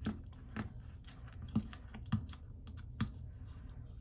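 Fingernails picking and scraping at Scotch tape on a cardboard mailer: about five sharp, irregular clicks and scrapes.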